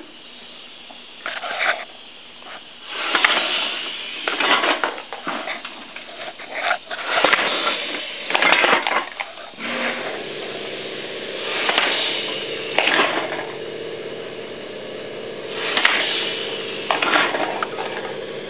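Homemade pneumatic can crusher cycling automatically, its air cylinder crushing aluminium cans one after another. Each cycle is a pair of noisy air blasts about a second apart, repeating every few seconds. A steady hum joins about ten seconds in.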